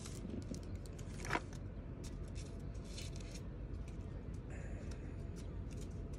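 Paper and plastic knife packaging rustling and crinkling as it is handled, in a string of short crackles with a sharper one about a second in.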